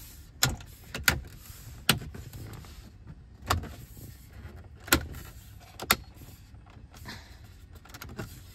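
Plastic dashboard trim of a Chevy Colorado being pressed into place by hand, its retaining clips snapping in as a series of sharp clicks, about half a dozen, spaced irregularly.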